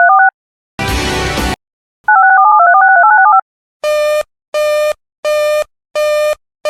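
Electronic emergency-alert tones between broadcast bulletins. A quick sequence of stepping two-tone beeps is followed by a short burst of harsh static-like noise, then the stepping beeps again. After that comes a run of evenly spaced buzzing beeps, about three every two seconds.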